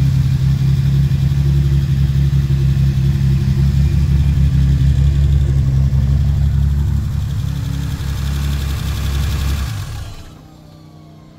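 Datsun 240Z's turbocharged stroker inline-six idling steadily with a deep, even hum. It fades over the last few seconds and drops away about ten seconds in.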